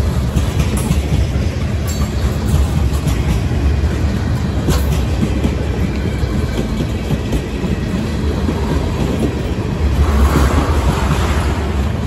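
Freight train tank cars rolling past: a steady low rumble of steel wheels on the rails, with a few sharp clicks. It gets somewhat louder about ten seconds in.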